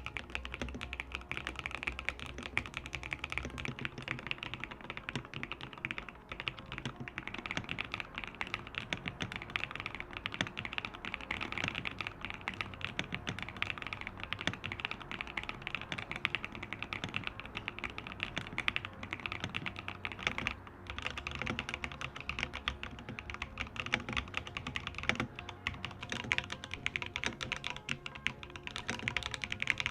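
Fast, continuous typing on a GDK LAB Kv1 65% mechanical keyboard built without case foam: a dense stream of keystroke clacks, easing off briefly twice.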